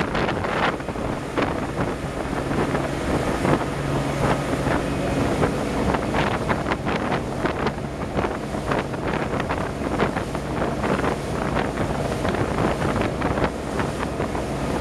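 Yanmar Hayakaze DE35 II motorboat running at speed: a steady engine drone under loud wind buffeting on the microphone and the rush of water from the wake.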